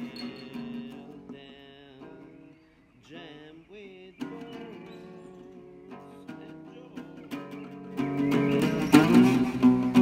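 Nylon-string classical guitar fingerpicking a blues, layered with electronically morphed, wavering tones. About eight seconds in the music gets much louder and fuller.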